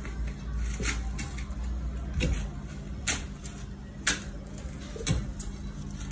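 Shovel and hoe blades striking soil and roots while digging out a tree, about one sharp strike a second, over a steady low hum.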